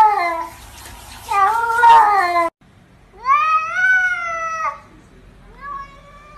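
Domestic cats meowing: two drawn-out meows, then a long meow and, a second later, a shorter answering meow from a second cat.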